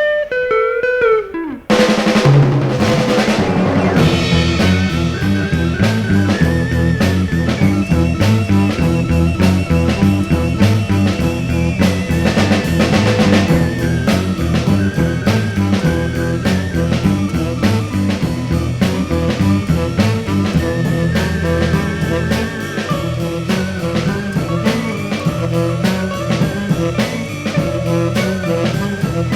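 A 1960s beat band playing an instrumental with a drum kit, electric guitar and bass guitar on a repeating low riff. A short break and a few loud accented hits come near the start, then the riff runs on steadily.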